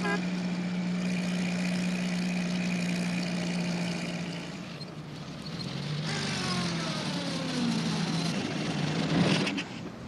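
Animated post van's engine sound played in reverse: a steady hum, a brief dip, then from about six seconds in an engine note whose pitch slides down over a few seconds as the van comes into view.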